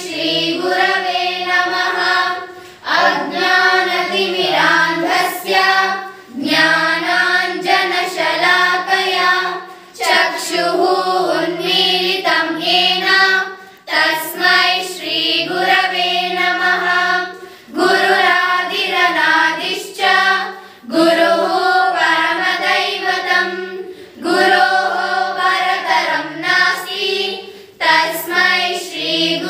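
A group of schoolchildren singing a guru vandana, a devotional hymn to the teacher, together in unison. The song comes in phrases of about two to four seconds, with a brief pause for breath between them.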